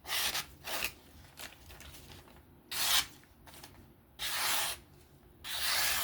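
A Benchmade Bugout's M390 steel blade drawn along a strop in about five separate rubbing strokes with short gaps between. This is the final stropping after sharpening, to take off the remaining burr.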